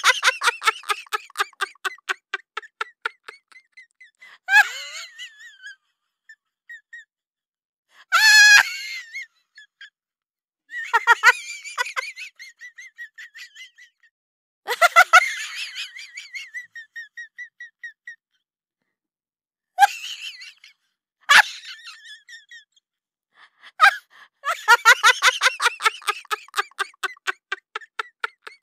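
Repeated bouts of high-pitched, rapidly pulsed laughter-like vocal sounds, about eight of them. Each bout starts loud and trails off, with short silences between.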